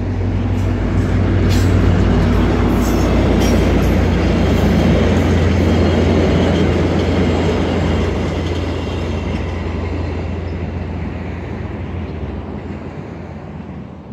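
VIA Rail passenger train crossing a steel girder bridge overhead: the diesel locomotive's low engine hum and the rumble of wheels on the bridge. A quick run of wheel clicks comes in the first few seconds, and the noise dies away as the cars pass.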